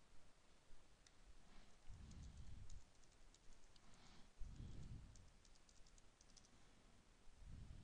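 Faint typing on a computer keyboard, a run of quick light key clicks as a login name and password are entered, with a couple of soft low thumps.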